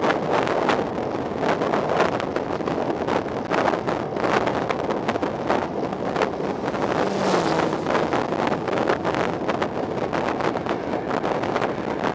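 Wind buffeting the microphone of a bicycle-mounted camera in gusts, with tyre and road noise beneath. An oncoming car passes with a brief swell of noise about seven seconds in.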